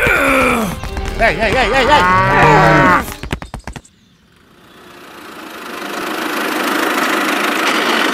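A long, wavering moo-like call, its pitch bending up and down, cuts off abruptly about four seconds in. After a moment of quiet, a steady engine-like hum fades in and holds.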